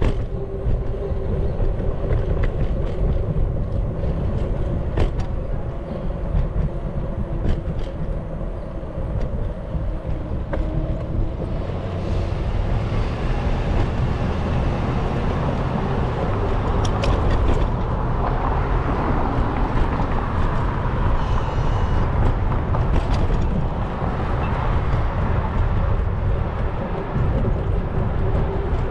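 Wind rumbling on the microphone of a camera moving along on a bicycle, mixed with city traffic noise. A steady hum is heard in the first few seconds and again near the end, with a few light clicks.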